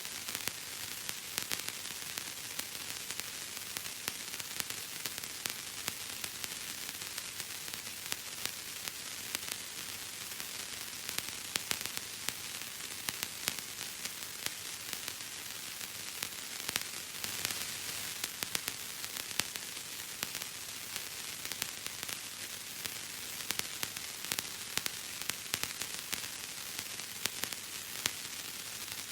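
Bubble wrap being popped, a dense irregular crackle of small pops over a steady hiss, with no pauses.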